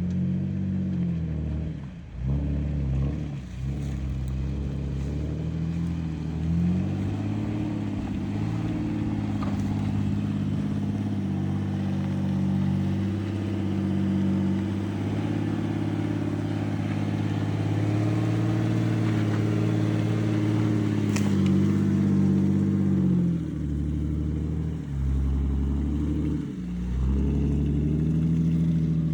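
Off-road vehicle's engine running under changing throttle, its pitch rising and falling several times as it pulls and eases off. A single sharp click sounds a little past twenty seconds in.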